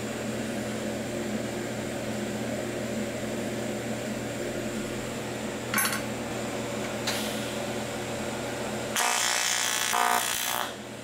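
A TIG arc buzzing on aluminium for about a second and a half near the end, loud and evenly pitched, over a steady machine hum.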